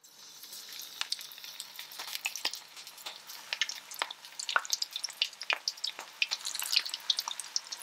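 Coconut-coated shrimp frying in hot coconut oil in a cast-iron skillet: a steady sizzle with frequent sharp crackles and pops.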